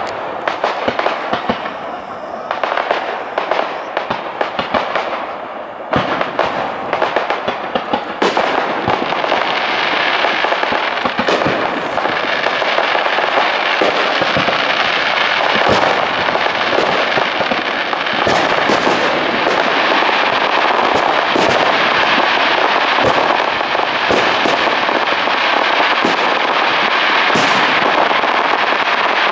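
Lakeside fireworks display: aerial shells and fountains firing in a rapid series of bangs and crackles. About a third of the way in it thickens into a dense, continuous barrage.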